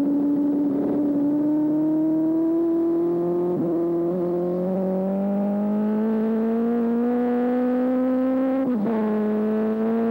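A Yoshimura Suzuki superbike's four-cylinder engine pulling hard, its note climbing steadily as the revs rise. Near the end there is a brief break and a drop in pitch as the rider shifts up, and then the note starts climbing again.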